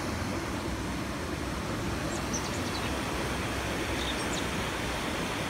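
Shallow stream rushing steadily over rocks and a small cascade, with a few faint bird chirps about two and four seconds in.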